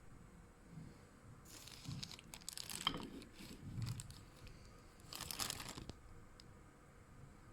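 Two bursts of crinkling, rustling handling noise, the first about a second and a half in and the second around five seconds, with a few soft low thumps between them.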